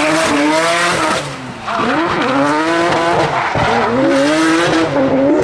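A drift car's engine revving hard and wavering in pitch as the car slides sideways, with its tyres screeching over a wide hiss. About a second and a half in, the revs and loudness drop briefly, then climb again.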